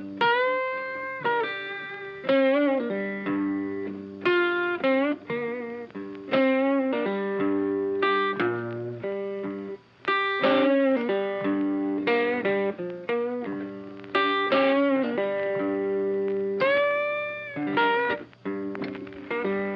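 Instrumental background music led by guitar: plucked notes over a steady accompaniment, with some notes bent and wavering in pitch.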